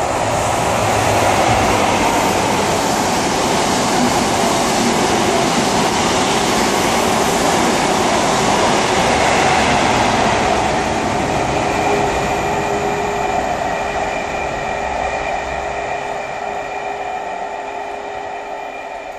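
Great Western Railway InterCity 125 (HST) with Class 43 diesel power cars running through the station at speed without stopping: a loud, steady rush of wheels and engines. The noise eases off over the last several seconds while a steady whine comes through as the train goes away.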